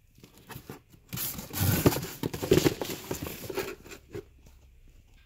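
A cardboard shoebox being handled and opened, with tissue paper rustling and crinkling and light knocks of cardboard. It starts about a second in and dies away near the end.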